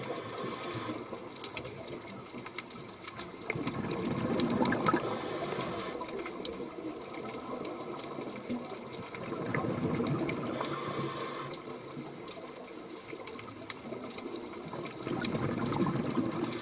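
Underwater recording of a scuba diver breathing through a regulator: each breath brings a swell of gurgling exhaled bubbles and a short hiss from the regulator, repeating about every five to six seconds, three times.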